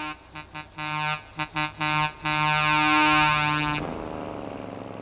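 A deep two-tone truck horn honking: several short toots, then one long blast of about a second and a half that stops about four seconds in. Road noise from the truck driving alongside follows.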